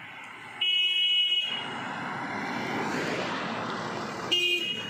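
Two vehicle horn blasts, each a steady high tone: the first lasts under a second and the second is shorter, near the end. Between them, the noise of a vehicle passing on the road rises and fades.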